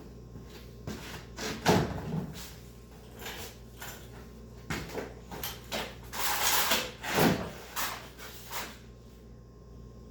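Irregular handling noises: a few knocks and rustles, with a longer rustling or scraping stretch about six to seven seconds in.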